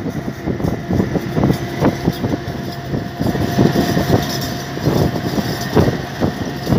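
A road vehicle in motion: a steady engine and road rumble with frequent irregular knocks and rattles.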